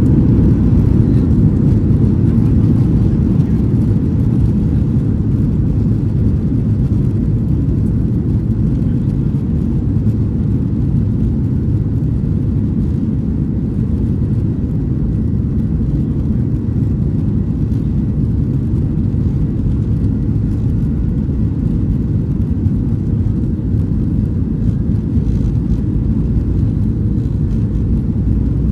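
Steady low cabin drone inside a Boeing 737-800: the CFM56-7B engines and the airflow past the fuselage, heard from a window seat, unchanging throughout.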